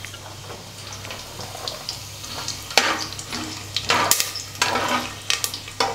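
Whole spices sizzling in hot ghee and oil in an aluminium pressure cooker. From about three seconds in, a spatula scrapes and stirs them against the pan several times.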